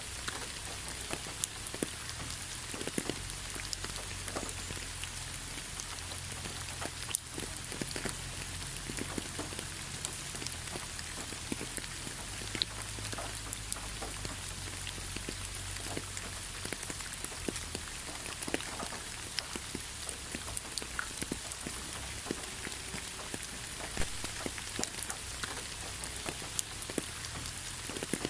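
Steady rain falling, a constant hiss with many separate drops ticking sharply on nearby surfaces.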